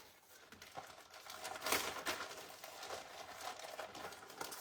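Sheets of scrapbook paper and cardstock rustling and shuffling as they are handled, with a louder rustle about two seconds in.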